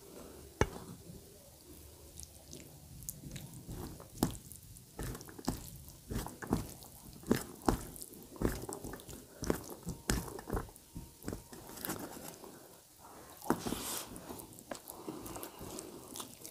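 Rice and potato curry being mixed and eaten by hand from a steel plate: irregular soft clicks, squishes and scrapes of fingers in the food against the plate, with chewing.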